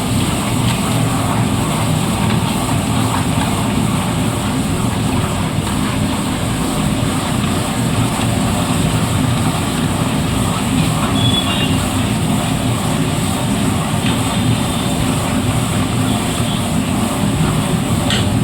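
Steady loud roar of a commercial kitchen during stovetop cooking, the gas burner and extraction running, with a few faint clinks.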